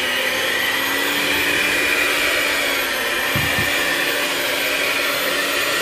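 Black+Decker Performance Helix hand mixer running steadily on speed 3, its dough hooks working a stiff bread dough, with a steady motor whir and hum; the mixer is vibrating hard under the load. A couple of brief knocks come about three and a half seconds in.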